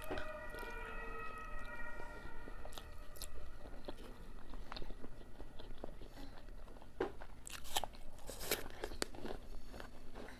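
Close-up eating sounds: crisp bites into an apple and chewing, irregular crunches with a louder run of them near the end.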